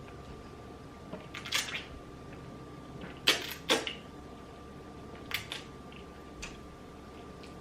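Eating sounds close to the microphone: a handful of short mouth and utensil noises, loudest as a pair about three and a half seconds in, over a faint steady hum.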